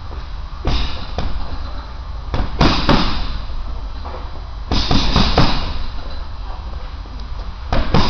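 Boxing gloves punching a heavy bag: short combinations of sharp slapping thuds, each with a brief echo, coming in four flurries of two to four punches.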